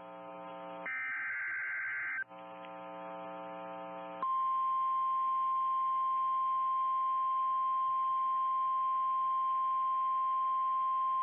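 NOAA Weather Radio emergency alert signal. A short screeching SAME digital header burst, with a buzzy hum before and after it, gives way about four seconds in to the steady 1050 Hz warning alarm tone, which announces that a warning message follows.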